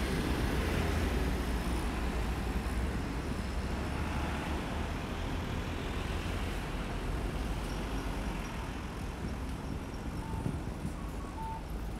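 City street traffic noise: a steady wash of passing cars and larger vehicles, with a heavy low engine rumble that is strongest in the first few seconds and then eases off.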